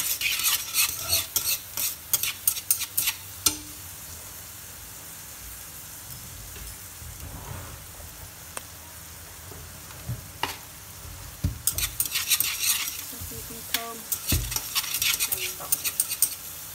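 Shallots and minced garlic sizzling in lard in a stainless steel pot, with a steady frying hiss. Chopsticks click and scrape against the pot in two spells of stirring, one in the first few seconds and another in the last five.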